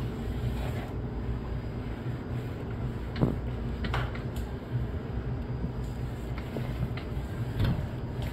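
Steady low mechanical hum of running kitchen machinery, with a few light knocks about three and four seconds in and again near the end.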